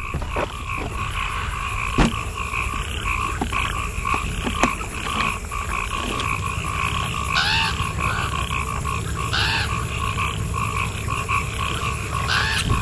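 A dense chorus of frogs calling continuously, a steady pulsing trill with a few louder calls standing out about seven and a half, nine and a half and twelve and a half seconds in. Low wind rumble runs underneath, and there is a single sharp knock about two seconds in.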